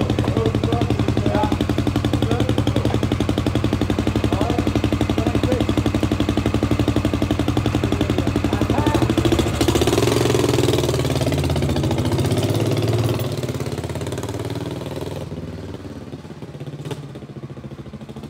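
Royal Enfield motorcycle engine idling steadily, then picking up revs as the bike pulls away about ten seconds in and fading as it rides off into the distance.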